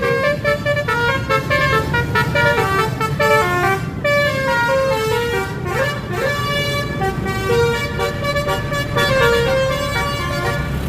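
Basuri musical horn, a telolet-style multi-tone vehicle horn played through a horn speaker, sounding a tune of held notes stacked into chords that step from one note to the next. A rising slide comes about six seconds in. A steady low rumble runs underneath.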